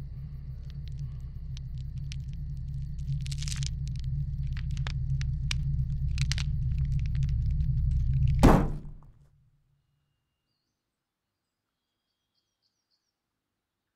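A swelling low rumbling drone, laced with scattered crackles and clicks, grows steadily louder, peaks in a sharp loud hit about eight and a half seconds in, then cuts off to near silence, broken only by a few faint high chirps near the end.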